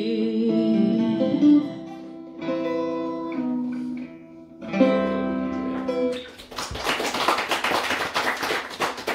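Electric guitar playing the closing chords of the song, each chord left to ring. About six seconds in, a small audience starts applauding.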